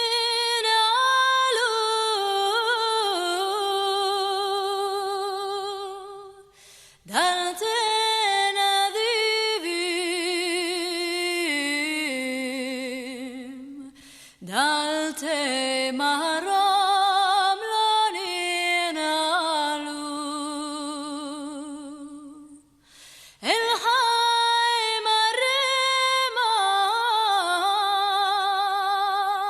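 Music: a woman singing long, ornamented phrases with a wavering vibrato, nearly unaccompanied. There are four phrases, with a short break between each.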